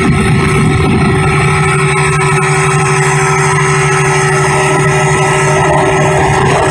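Boat engine running at a steady drone, with water rushing and wind noise.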